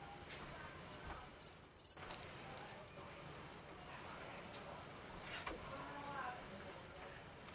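Crickets chirping faintly in the background, a steady run of short high chirps at about two a second.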